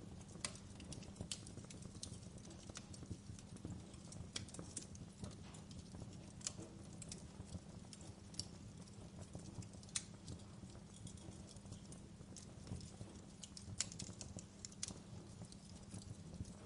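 Wood fire crackling in a fireplace: irregular sharp pops and snaps, a few a second with a louder one now and then, over a steady low rumble of the burning fire.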